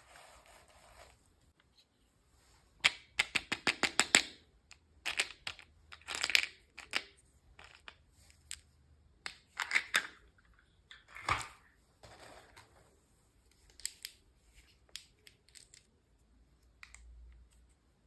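Toy packaging being opened and handled by hand: a quick run of about ten sharp clicks, then several bursts of plastic crinkling and rustling with scattered small clicks.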